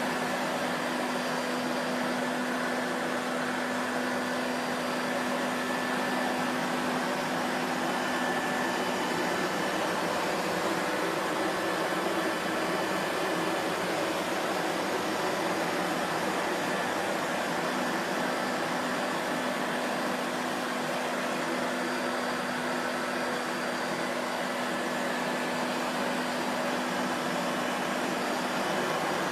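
Vacuum cleaner motor running steadily, a constant whooshing roar of rushing air with a faint steady hum underneath.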